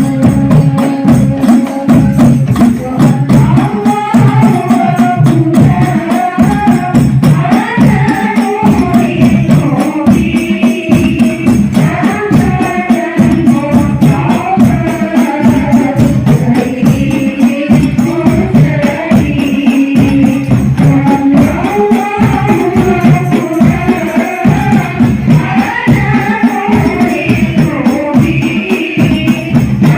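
Hadroh music played loud through a sound system: rebana frame drums beating a dense, steady rhythm under a sung devotional melody.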